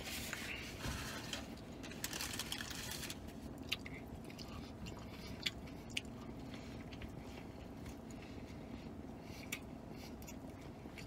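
A man chewing a pretzel-bun bacon cheeseburger close to the microphone, with wet mouth clicks and smacks. A napkin rustles against his mouth during the first few seconds, over a faint steady hum.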